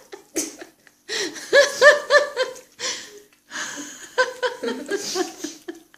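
A person laughing in two bouts of quick, repeated pulses.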